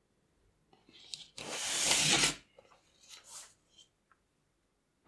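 Metal baking tray scraped across a wooden table: one loud rough scrape of nearly a second about one and a half seconds in, with lighter rubs and taps around it.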